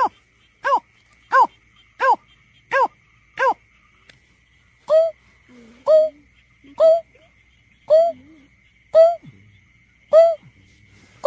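Greater painted-snipe calls from a lure recording: a string of short hoots about 0.7 s apart, then after a short pause a series of lower hoots about once a second. A faint steady high whine runs underneath.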